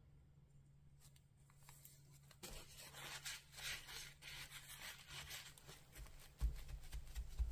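Crumpled tissue rubbed briskly over a glued-down paper cutout on a journal page, a dry scratchy rubbing that starts a couple of seconds in, with a few low thumps near the end.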